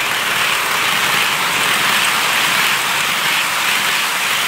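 OO gauge Bachmann Class 20 model diesel locomotive and its tank wagons running past on the track: a steady rushing hiss of wheels and motor, with a faint regular pulse.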